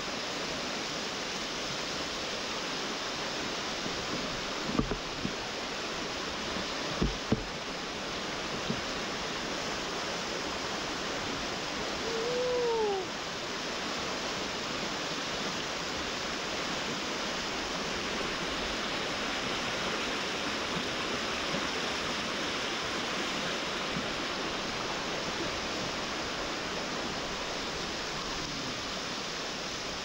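Waterfall water rushing, a steady hiss. There are a few brief knocks in the first eight seconds and one short rising-then-falling call about twelve seconds in.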